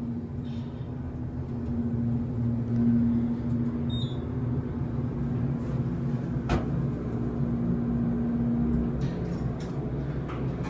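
Fujitec elevator car travelling up: a steady motor hum over a low rumble, with a single sharp click partway through, and the hum easing off near the end as the car slows.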